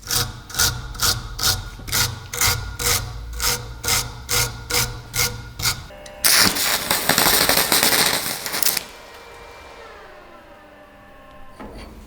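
Even back-and-forth scraping strokes of a hand tool worked on a part, about two strokes a second. About six seconds in, a power tool runs loudly for a couple of seconds, then is switched off, its pitch falling as it spins down.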